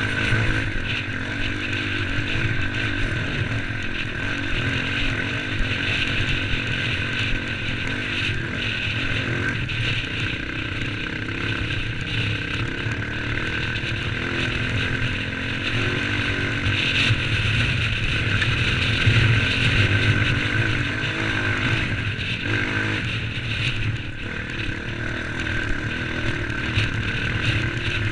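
Off-road trail motorcycle engine running continuously under way, growing louder for a few seconds past the middle.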